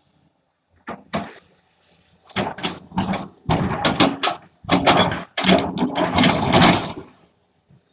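Excavator bucket working rubble and debris: a loud, irregular run of clattering and scraping crashes that starts about a second in and stops about seven seconds in.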